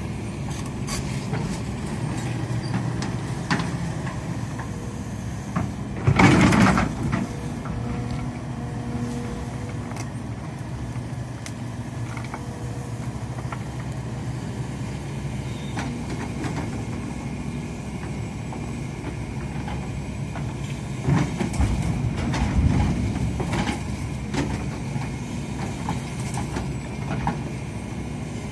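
Hidromek 300 crawler excavator's diesel engine running steadily under hydraulic load while it digs. Scattered clanks, with louder bursts of bucket-and-soil noise about six seconds in and again around twenty-one to twenty-three seconds.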